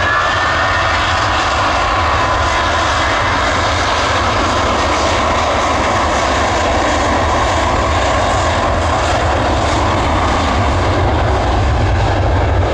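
Jet airliner's engines running loud at close range: a steady heavy noise with a deep rumble and a high whine that rises in pitch at the start and then holds.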